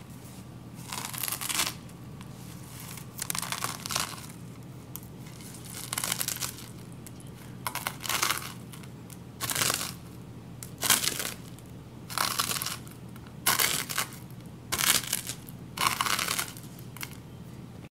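About a dozen short crunching noises at uneven intervals, roughly one a second, each lasting under a second, over a steady low hum.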